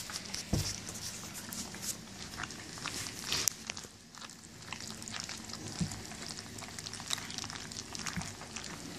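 German shepherd puppies eating soft, mashed food from a stainless steel pan: wet lapping, chewing and smacking, heard as a run of irregular small clicks and crackles.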